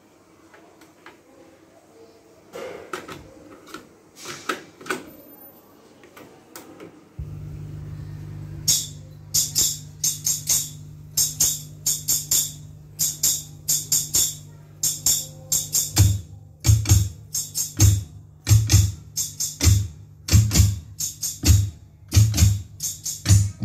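A few clicks from a Denon DRM-540 cassette deck's transport keys and mechanism, then a tape playing back music: a low steady tone starts about seven seconds in, a fast high jingling beat joins soon after, and a heavy low drum beat comes in about halfway through.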